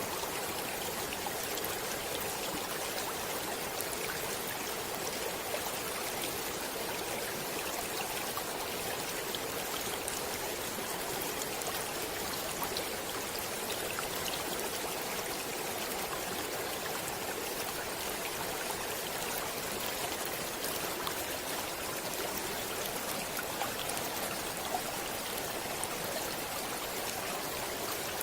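Stream water flowing and trickling steadily over rocks, a continuous rushing hiss with many small splashing ticks.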